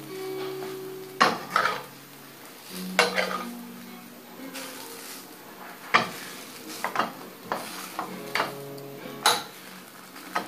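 Slotted metal spatula scraping and clacking against a nonstick frying pan as a pancake is pressed flat, with irregular sharp knocks over the sizzle of the pancake frying.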